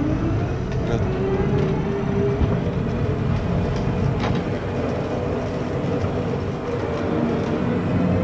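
Battery-powered Mean Green riding mower running: a steady rumbling whir with a faint motor whine.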